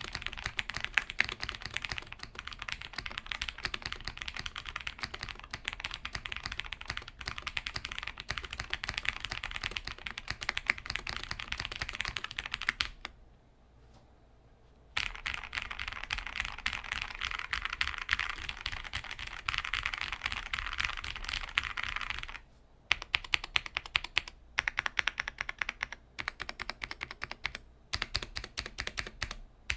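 Fast, continuous typing on a KBD8x MKII mechanical keyboard with a polycarbonate plate, PBT keycaps and lubed, filmed Gateron Milk Black linear switches. It stops for about two seconds near the middle. In the last third the keystrokes come in sharper, more separate bursts with short gaps between them.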